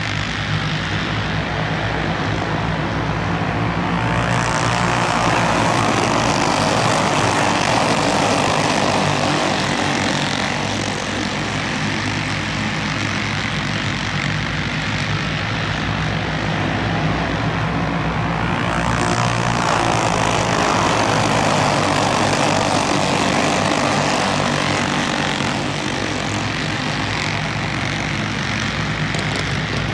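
A field of dirt-oval racing karts with small single-cylinder flathead engines racing at full throttle. Their steady drone swells twice as the pack comes round, then eases off.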